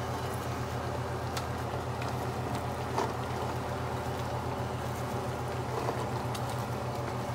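Steady low kitchen hum with a few faint clicks and light handling sounds as chopped greens are pressed by hand into a metal cooking pot.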